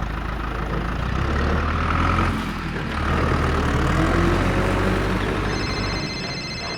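Steady low engine rumble, like a tractor or truck running. Thin steady high tones join about five and a half seconds in.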